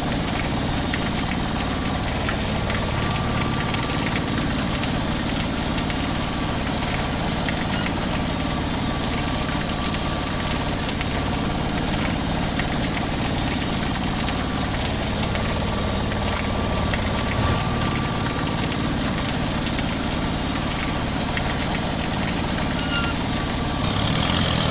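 A small motor or engine running steadily without a break, with an even idling-like hum.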